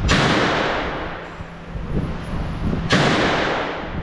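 Two gunshots about three seconds apart, each a sharp loud crack that rings out with a long echo.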